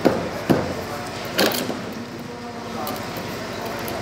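A few sharp knocks, three in the first second and a half, over a faint murmur of voices.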